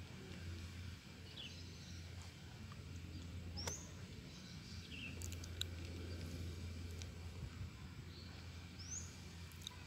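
Faint outdoor ambience of birds chirping, short rising calls every second or two, over a steady low hum, with one sharp click a little under four seconds in.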